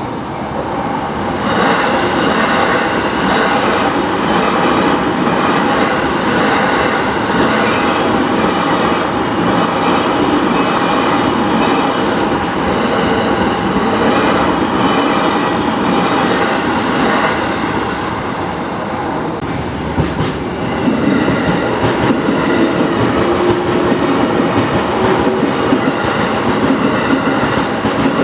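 Two electric commuter trains pass a level crossing one after the other, wheels clattering over the rail joints, with a steady tone from the crossing's warning bell underneath. The second train comes through about twenty seconds in.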